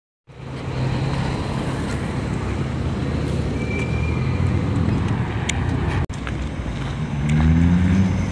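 Road traffic with a steady low rumble. About seven seconds in, a vehicle engine rises in pitch as it speeds up.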